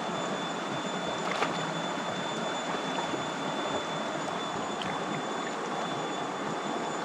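Shallow river water running steadily over a rocky riffle, an even rush of noise with a thin, steady high whine over it.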